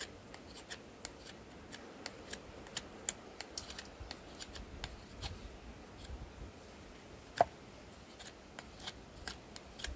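SOG Tech Bowie knife blade carving into dry oak: faint, scattered scraping and crackling ticks, with one sharper click about seven seconds in.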